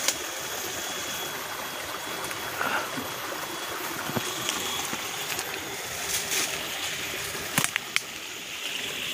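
Steady rush of a flowing stream, with scattered short snaps and rustles from branches and dry bamboo litter being handled.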